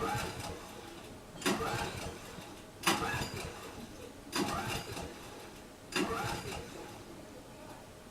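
Small snowmobile engine being cranked in five short attempts about a second and a half apart, each turning over briefly and dying away without catching: the engine won't start.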